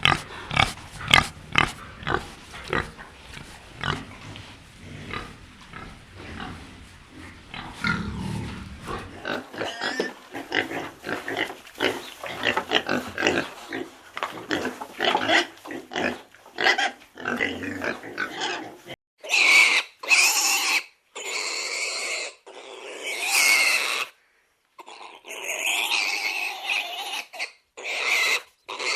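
A pig grunting in short, repeated grunts, then a herd of pigs grunting together from about nine seconds in. From about nineteen seconds in come loud, drawn-out pig squeals, several in a row with short gaps between them.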